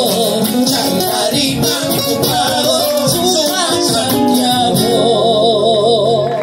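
A woman and a man sing a gato, an Argentine folk song, together over strummed acoustic guitars. Near the end they hold one long note with vibrato.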